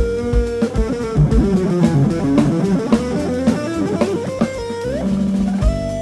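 Live rock band playing an instrumental passage: electric guitar melody with held, ringing notes over drum kit and bass guitar.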